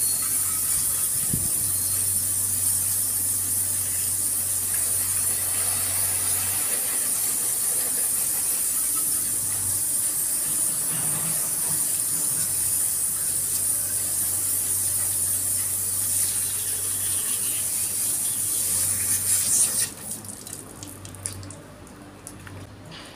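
Water spraying from a garden hose onto a motorcycle and wet pavement: a steady hiss that cuts off suddenly about 20 seconds in, leaving a few faint clicks and drips.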